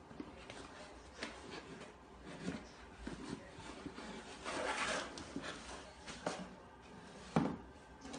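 Cardboard box scraping and rustling over the floor as a cat walks about with its head stuck inside it, with scattered light knocks; the loudest rustling comes about five seconds in.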